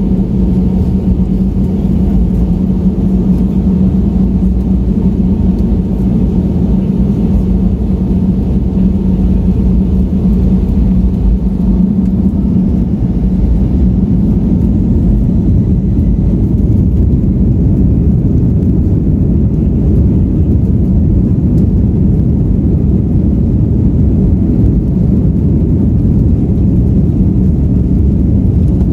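Jet engine and airframe noise of an Airbus A320 heard inside the cabin as it moves along the runway for takeoff: a steady loud rumble, with a low hum that fades about twelve seconds in.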